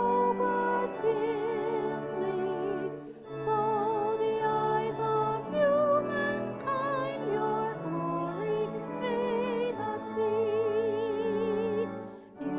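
Hymn singing in a church service: one voice with a strong vibrato stands out, moving note by note over held low accompaniment notes, with brief pauses between phrases about three seconds in and near the end.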